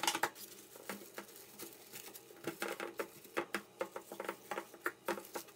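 Plastic cling film crinkling in quick, irregular small crackles as it is pressed by hand into a square mould.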